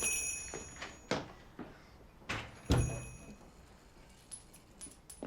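A door being handled and shut, with a knock about a second in and a heavier thud under a brief high ringing nearer the middle, then a few faint clicks.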